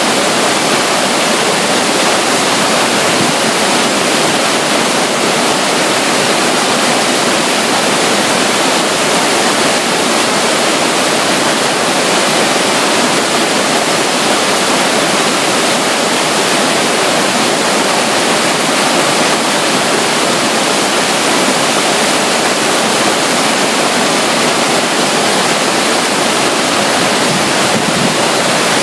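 Running water by a waterfall: a loud, steady rush of flowing and splashing water with no breaks or changes.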